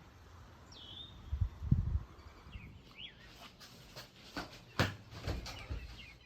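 A bird chirping a few short, downward-sweeping calls over a low outdoor rumble. Loud low thumps come about a second and a half in, and a series of sharp clicks and knocks runs through the second half.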